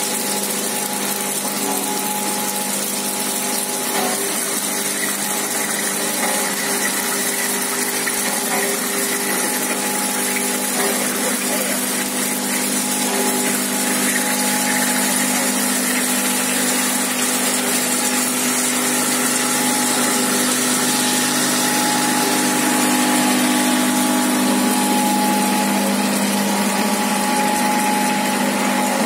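Seed magnetic separator running with sunflower seeds: a steady mechanical hum with a hiss over it, a little louder from about halfway through.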